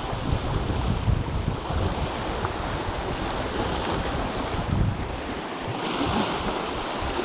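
Sea surf washing over shoreline rocks, with wind buffeting the microphone; the hiss of the wash swells about six seconds in.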